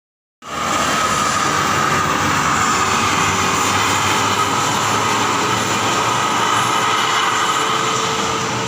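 Steady rush and rumble of heavy road traffic such as passing buses, cutting in abruptly about half a second in and holding at an even level throughout.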